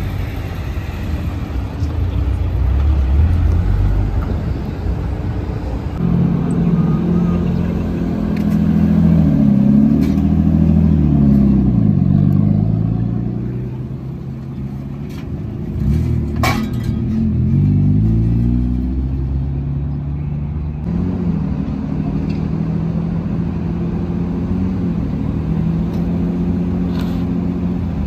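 Car engines at close range: one holds a steady idle while others pass or rev, their pitch swinging up and down. A single sharp click comes a little past halfway.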